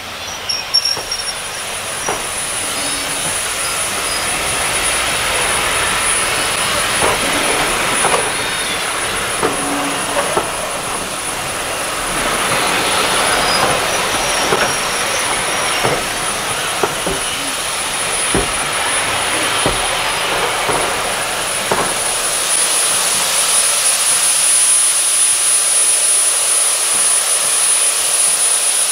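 Steam-hauled passenger train pulling away: a steady hiss of steam under scattered clicks and knocks from the coaches' wheels as they roll past.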